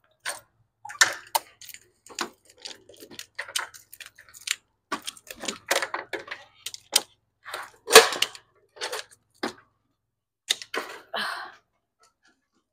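Irregular clicks, knocks and rattles from a heavy glass entry door's latch and frame and a mobility scooter bumping through the doorway, the loudest knock about eight seconds in.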